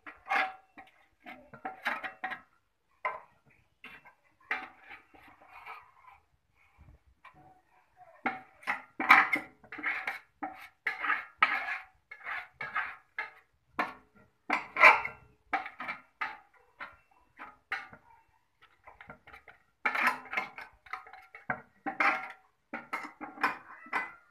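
Stainless steel bowl clinking, knocking and scraping in irregular bursts as it is handled, loudest around the middle of the stretch.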